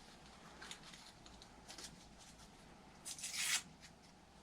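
Light handling clicks of small parts and tools, with a short rustle about three seconds in.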